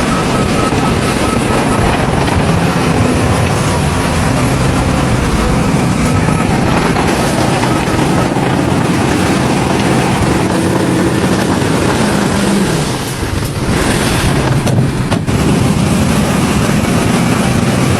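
Heavy diesel earthmoving machinery, such as bulldozers, running steadily with a continuous engine drone and mechanical clatter, dipping briefly about thirteen seconds in.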